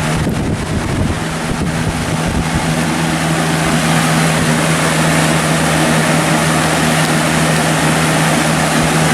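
Lakewood RainGuard box fan running on high speed: a steady rush of air over the small tuna-can motor's constant hum.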